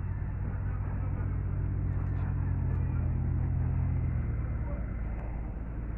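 A motor vehicle's engine running close by as a low, steady hum. It grows slightly louder, then drops away about four seconds in.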